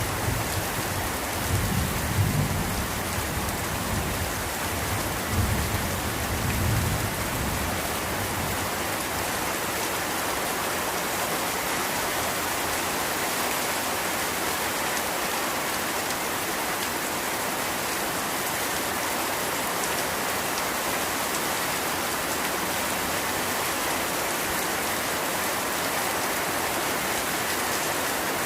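Steady heavy rain falling, with low rolling thunder in the first several seconds that swells twice and fades out.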